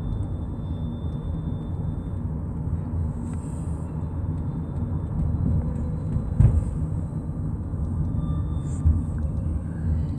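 Steady low road and engine rumble inside a moving car's cabin, with a single knock about six seconds in.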